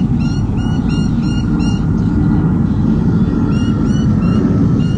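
Sea eagle chicks cheeping: runs of short, rapid chirps that pause around two seconds in and start again a little later. These are cheeps in response to a parent's flyby. A loud steady low rumble runs underneath.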